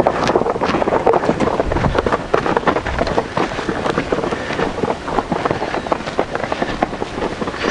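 Wind buffeting the camera microphone: a steady rushing noise full of fine crackles, with low rumbling gusts about two and three seconds in.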